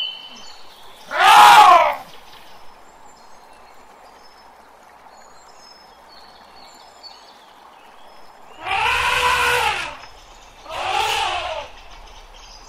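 Asian elephants trumpeting: three shrill, loud calls, one about a second in and two close together near the end.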